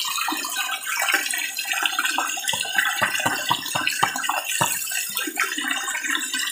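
Red tilapia thrashing at the pond surface as they feed, a rapid run of small splashes over a steady wash of churning water.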